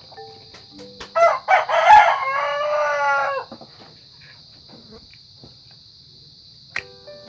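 A rooster crowing once, about a second in: a few short rising notes, then a long held note that drops at the end.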